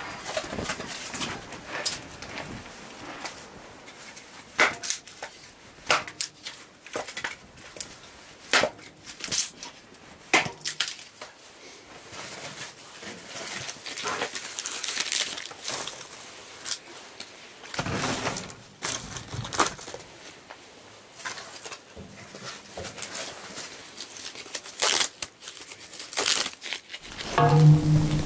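Firewood and kindling being handled and laid in a metal fire pit: a run of sharp wooden knocks, cracks and crunches at irregular intervals.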